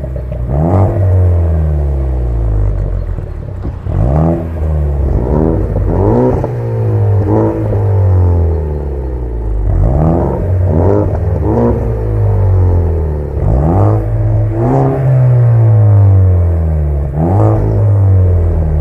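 Ford Focus ST Mk3 engines revved through their exhausts, about a dozen quick throttle blips, each rising sharply and dropping back to a rumbling idle.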